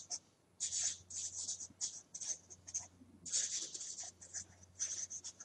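Marker pen writing on paper: many short, scratchy strokes in quick runs, with brief pauses between them.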